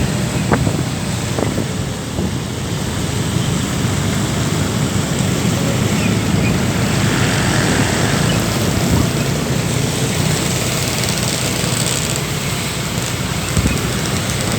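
Steady rumble of road traffic in a jam, engines running with a constant hiss over it and a couple of brief knocks.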